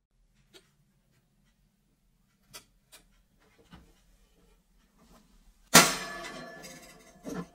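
A few faint clicks, then a sharp metallic clank from a steel wire oven rack being handled. It rings and rattles as it dies away, and a second clunk comes near the end.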